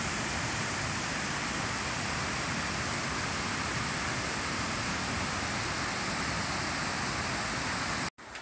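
Waterfall rushing: a steady, dense noise of water pouring over a rock ledge, breaking off abruptly a little before the end.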